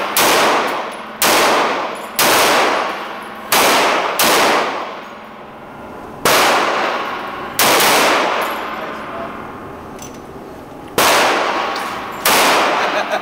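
Handgun shots fired at an indoor shooting range: about nine single shots at an uneven pace, with a pause of about three seconds before the last two. Each shot rings out in a long echo off the range walls.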